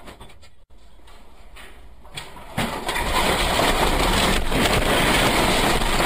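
Loud, steady rushing noise that starts suddenly about two and a half seconds in, with a few faint knocks in it.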